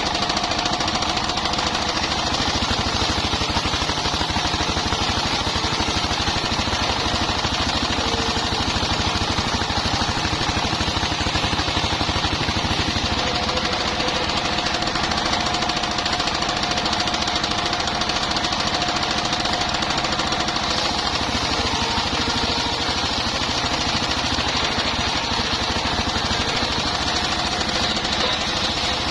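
Engine-driven portable circular sawmill running steadily, with rapid engine knocking under a steady whine, as its blade saws bayur timber into beams.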